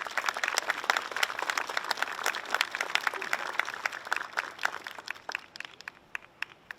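Audience applauding: a dense patter of hand claps that thins out to a few scattered claps near the end.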